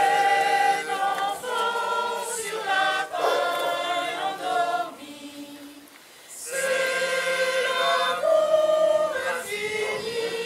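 Choir singing: one phrase, then a short pause about five seconds in, then the next phrase from about six and a half seconds.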